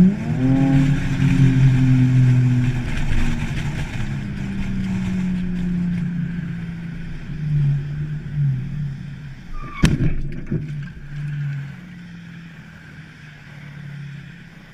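A car engine and road hum inside a moving car, then one sharp crash about ten seconds in as the car rear-ends the car ahead. A quieter hum continues after the impact.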